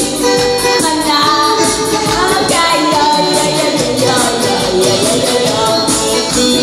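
A woman singing a Korean nostalgic pop song into a handheld microphone over a karaoke-style backing track with a steady beat.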